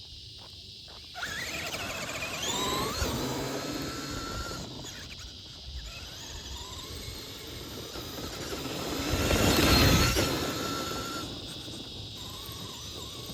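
Traxxas Summit RC truck's stock brushed electric motor and drivetrain whining as it is driven, the pitch rising and falling with the throttle. The loudest, noisier surge comes about nine to ten seconds in, then eases off.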